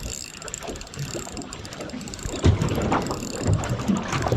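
Fishing reel being wound in after a bite, its gears giving a steady fine clicking whirr, with a few low thumps partway through.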